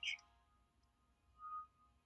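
Faint, quiet background music with held tones, one soft tone swelling briefly about one and a half seconds in.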